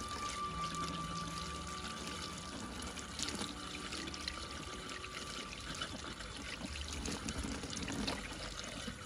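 Water pouring and trickling, under faint background music.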